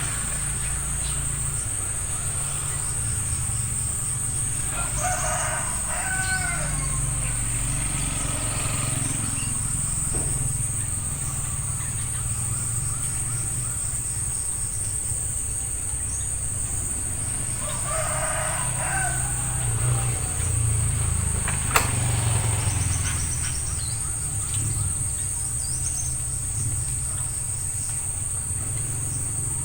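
A rooster crowing twice, about five seconds in and again about eighteen seconds in, each crow lasting around two seconds, over a steady high-pitched whine.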